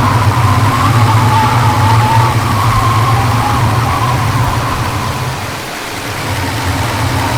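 A car driving, its engine and road noise making a steady low drone with a faint whine above it; the noise eases off briefly about six seconds in, then picks up again.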